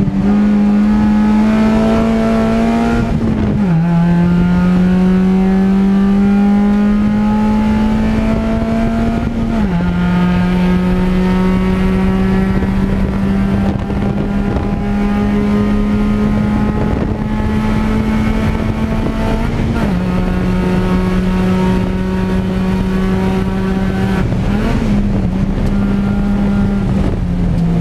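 Race car engine running hard at high revs, heard from inside the cockpit over road and wind noise. The engine note climbs slowly and drops suddenly at upshifts about 4, 10 and 20 seconds in, with a brief blip in pitch about 25 seconds in.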